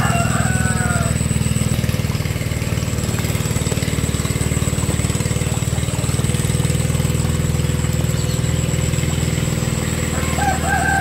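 Hand tractor's single-cylinder engine running steadily while plowing a flooded rice paddy, with an even chugging beat. Two brief calls come through over it, one at the start and one near the end.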